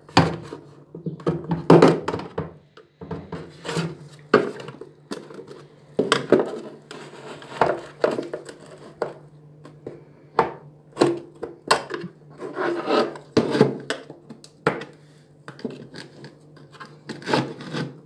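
Small screwdriver prying and scraping at a washing machine's plastic detergent-drawer housing, working its snap-fit clips loose: irregular scraping with many sharp plastic clicks and snaps.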